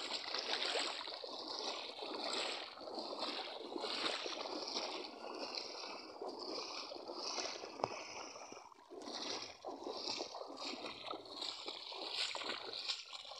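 People wading barefoot through shallow river water, their feet splashing with each step in an uneven run of splashes.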